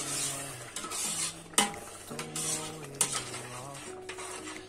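Metal slotted spoon stirring and scraping a thick tomato sauce in a stainless steel pot, clinking sharply against the pot twice, about one and a half and three seconds in.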